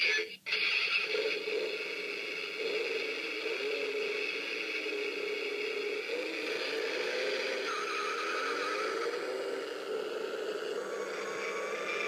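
Batman Tumbler alarm clock sounding its alarm through its small built-in speaker: a recorded vehicle-engine sound effect, steady with a wavering pitch.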